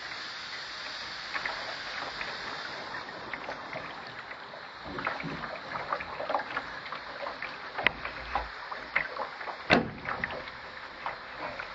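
Small waves lapping and splashing against the hull of a Contender sailing dinghy, with scattered sharp clicks and knocks from the boat; one louder knock near the end.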